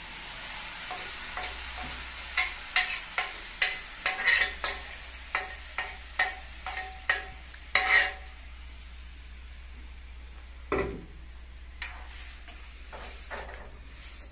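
Chickpea curry frying and sizzling in a kadhai while a metal spoon stirs it. A run of sharp clinks and scrapes of the spoon against the pan comes from about two to eight seconds in, with a few more later.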